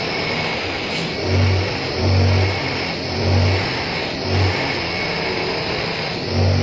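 Electric bench buffing motor running with a steady whine while its cloth buffing wheel polishes a motorbike front wheel hub held against it. A low hum swells and fades about five times.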